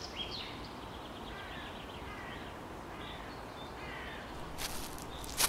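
Outdoor ambience: a steady background hiss with birds calling, high chirps at first, then a few short calls that slide downward. Near the end a couple of rustling footsteps begin.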